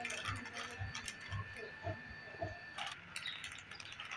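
Wooden rolling pin rolled back and forth over dough under a plastic sheet, with soft crinkling of the plastic and a low bump about twice a second.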